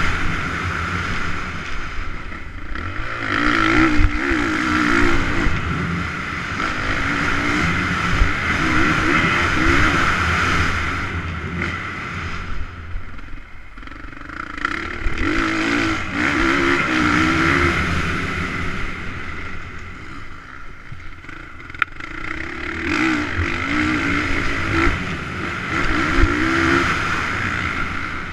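Motocross bike engine heard onboard while riding a dirt track, revving up and easing off again and again through corners and straights, with brief lulls about halfway through and again a little later.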